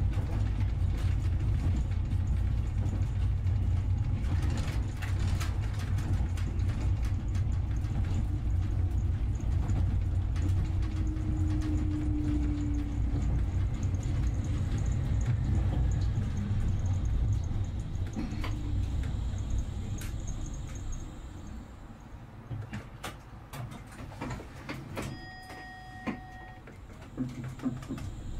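Vehicle engine running under way, heard from on board, with a low rumble that fades about two-thirds of the way through as the vehicle slows to a stop. A short beep sounds near the end.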